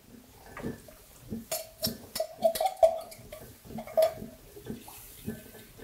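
Metal spoon stirring a starch slurry in an enamel mug, clinking against its sides in a run of taps about three a second, with a sharper clink about four seconds in.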